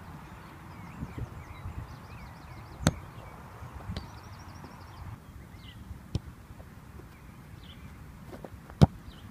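A football kicked on grass with a sharp thud about three seconds in, then a louder kick near the end, with lighter thuds of running footsteps between. Birds chirp faintly in the background.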